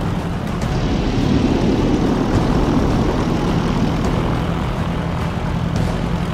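Small single-engine propeller plane's piston engine running, a steady drone with propeller noise, growing somewhat louder between about one and three seconds in.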